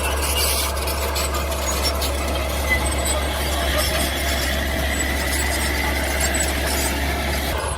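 Mini bulldozer's engine running steadily with a low drone, and a high squeal over it.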